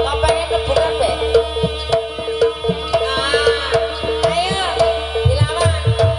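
Jaranan dance music: quick hand-drum (kendang) strokes over a steady held tone, with a wavering melody rising and falling in the second half.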